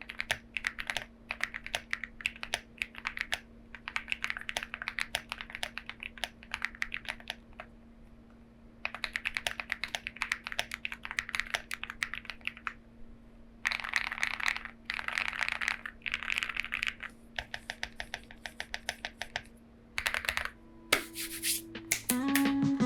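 Typing on a Lucky65 mechanical keyboard with lubed Dopamine switches and pink pig keycaps: runs of quick keystrokes broken by short pauses, with denser flurries about halfway through. Music comes in near the end.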